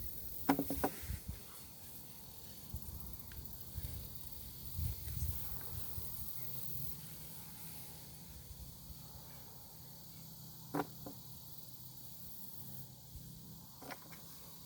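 Shovel digging in garden soil: a few short, sharp scrapes and knocks of the blade, one about half a second in and two more near the end, with a low rumble of handling or wind around the middle.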